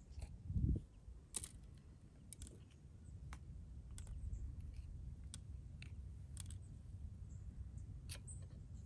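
Scattered sharp clicks and crisp snaps of a small knife cutting around the stem of a yellow bell pepper to core it, with a low thump about half a second in.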